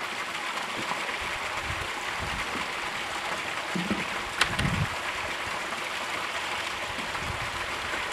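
Water running steadily through a mini highbanker and pouring off the end of its sluice into a tub. About four seconds in comes a sharp knock with a few dull thumps.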